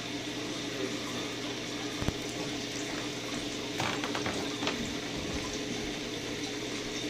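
Steady running, trickling water of a saltwater reef aquarium's circulation, over a low, even pump hum. A light knock comes about two seconds in, and a few faint clicks follow a little later.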